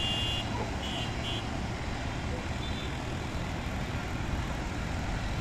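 Busy city road traffic: a steady mix of engines and tyres, with several short high-pitched vehicle horn beeps at the start and about a second in.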